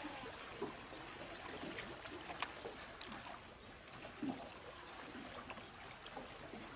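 Soft steady hiss of water lapping at a boat, broken by a few faint clicks and knocks, the sharpest about two and a half seconds in and a duller knock a little after four seconds.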